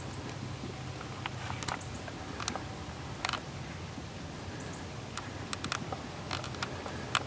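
Scattered small sharp clicks and light rustles, irregular and close by, over a steady low hum; the sharpest clicks come about two and a half and three seconds in, and near the end.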